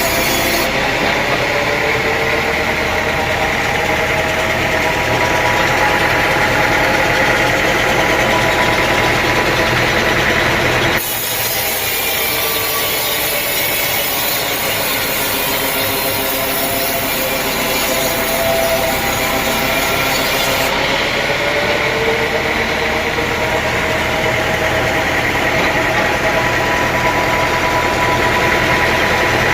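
Sawmill saw cutting through a teak log, a loud steady whine with slowly wavering tones and a hiss, with the mill's motor running under it. The sound changes abruptly about 11 seconds in and again about 21 seconds in.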